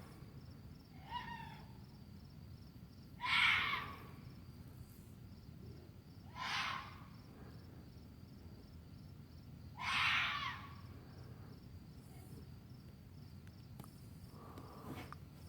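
An unseen animal giving harsh, raspy screeching calls at night, each about half a second long and repeated every three to four seconds. Three calls are loud and two are fainter, near the start and near the end.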